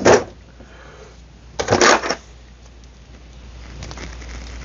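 Two short bursts of tools clattering as they are handled, the second longer, typical of rummaging through a tool drawer.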